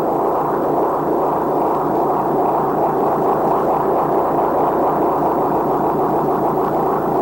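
Sound effect of the TARDIS stuck in flight: a loud, steady, harsh rushing noise that holds unchanged, with no pitch to it.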